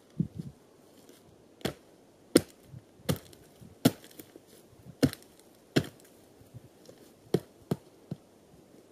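About ten sharp knocks at an irregular pace, roughly one or two a second: a tool striking wood or ground.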